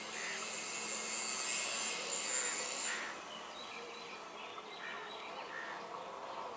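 Faint outdoor ambience: insects buzzing high and shrill, with scattered short bird chirps. The insect buzz drops away about three seconds in.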